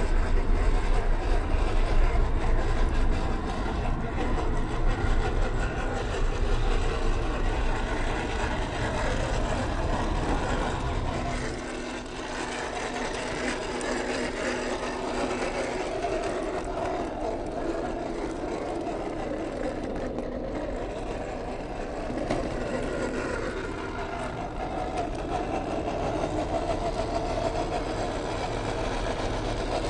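Small RC crawler's electric motor and gearbox whirring as it drives over loose gravel, with tyres crunching on stones. A low rumble under it cuts off about twelve seconds in.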